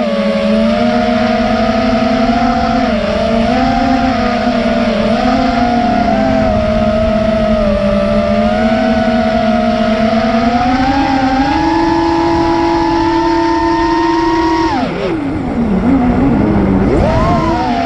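FPV racing quadcopter's brushless motors whining, the pitch wandering with the throttle. The pitch climbs slowly, drops sharply at about 15 s as the throttle is cut, then rises again near the end.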